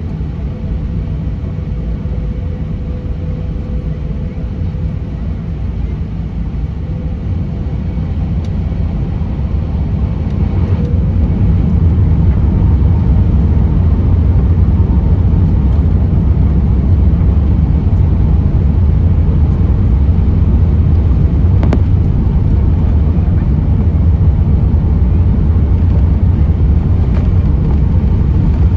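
Cabin noise aboard an Airbus A380 on the ground: a steady low rumble from its Rolls-Royce Trent 900 engines, which grows louder about eleven seconds in and then holds at the higher level.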